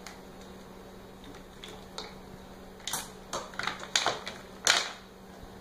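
A run of sharp, irregular clicks and taps, bunched between about two and five seconds in, over a faint steady hum.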